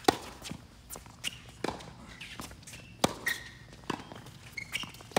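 Tennis doubles rally on a hard court: a serve hit just at the start, then a string of sharp racket strikes and ball bounces at irregular intervals, the loudest about three seconds in, mixed with players' footsteps and short high shoe squeaks.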